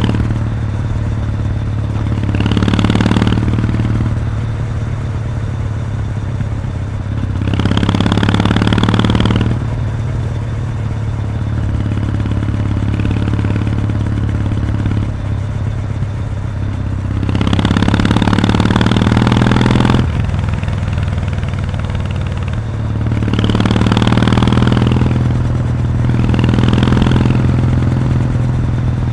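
Kawasaki W800's parallel-twin engine running through its stock muffler with the baffle removed, heard from the moving motorcycle. A steady low exhaust note that swells louder five times, for a second or two each.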